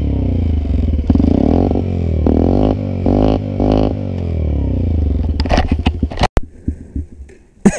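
Small motorcycle engine running with a low, shifting rumble for about five seconds, then knocks and clattering handling noises, broken by a sudden cut about six seconds in.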